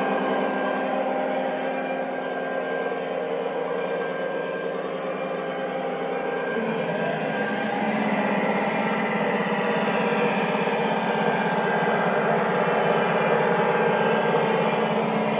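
Large-scale model diesel locomotive running around its track: a steady mechanical running sound that grows a little louder about six and a half seconds in.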